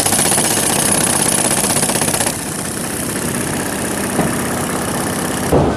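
Pneumatic jackhammer breaking up a concrete roof slab, a fast steady hammering rattle. About two seconds in it drops a little in level and carries on.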